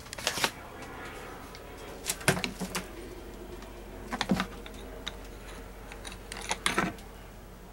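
Scattered sharp clicks and light clattering knocks in about four short clusters, the sound of hands handling the camera, wires and fittings at close range.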